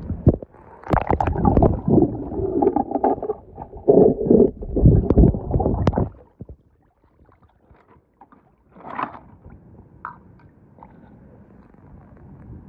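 Pool water splashing and bubbling around a submerged camera, loud and churning for about six seconds, then dropping to a quiet stretch with scattered small clicks and one brief splash about nine seconds in.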